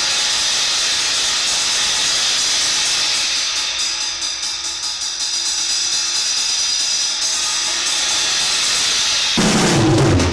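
Paiste PSTX 16-inch Swiss thin crash being played continuously, a steady, hissy cymbal wash kept up by repeated strokes, with quicker strikes in the middle. Near the end the rest of the drum kit comes in, with bass drum and toms under the cymbal.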